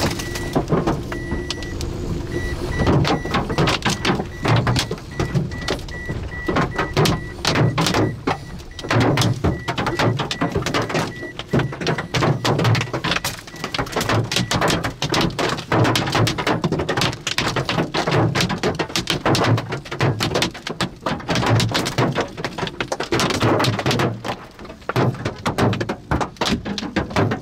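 Large hailstones hammering a vehicle's roof and glass in a dense, irregular barrage of hard knocks. An electronic beep repeats in short dashes through roughly the first eleven seconds.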